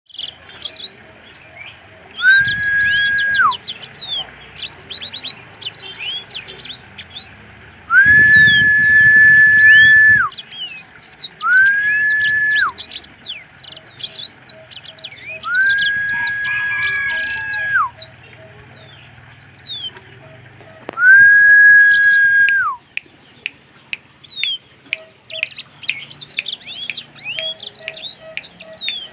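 A blackmoz, a canary-type cage songbird, singing busily: rapid high chirps and trills throughout, broken five times by a long, steady, loud whistled note that slides down at its end.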